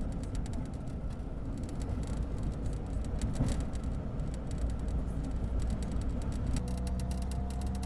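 Road noise inside a moving car: a steady low rumble of engine and tyres on the expressway. A faint steady tone joins near the end.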